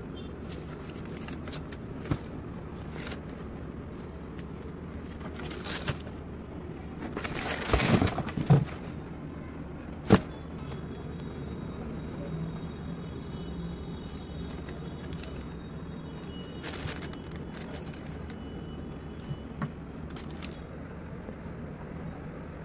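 Handling noise as a shoe and its cardboard box are handled: scattered small clicks, a burst of rustling and knocks about eight seconds in, and a single sharp click about two seconds later, over a steady low background rumble.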